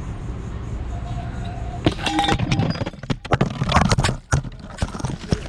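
A steady low rumble, then from about two seconds in a rapid run of knocks, clatters and scrapes from a pro stunt scooter crashing, as a part of it breaks and the rider falls hard.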